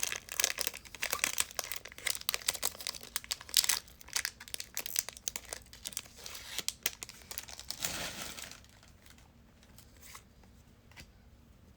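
Trading card pack wrapper crinkling and tearing as the pack is opened. About eight and a half seconds in it stops, leaving only faint light ticks.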